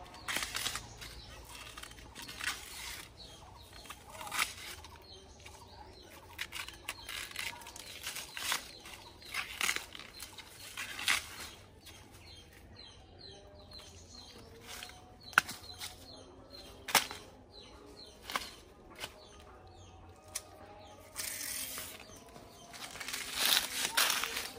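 Layers of a banana stem being peeled and pulled apart by hand: irregular crisp snaps, cracks and tearing of the wet, fibrous sheaths, with a couple of sharper cracks midway.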